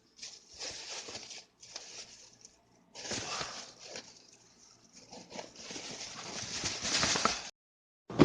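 Rustling and scraping handling noise in irregular stretches, with no engine running, cut off suddenly near the end.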